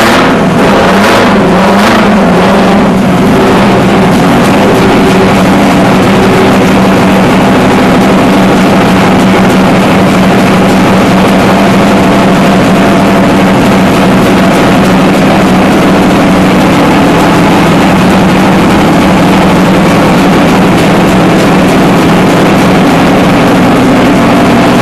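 Heavy diesel engine running steadily and loudly in the lifeboat boathouse, with a few sharp knocks in the first couple of seconds.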